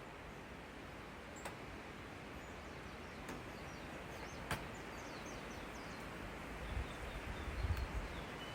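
Faint steady wind noise with a couple of low rumbling gusts near the end, small birds chirping in the background, and a few faint clicks.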